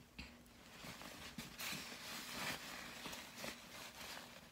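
Faint rustling of a quilted cloth bag as items are packed into it by hand, with a few soft knocks of things going in.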